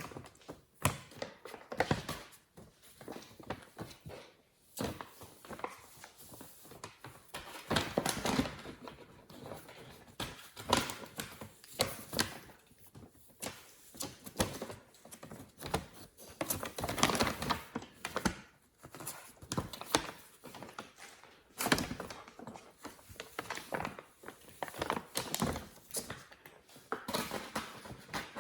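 A rustling bag crinkling irregularly as kittens play in and around it, with occasional soft thumps.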